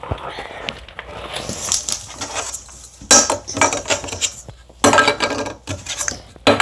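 Toys being handled on a plastic toy kitchen: light clattering, knocks and rubbing, louder in two stretches about three and five seconds in.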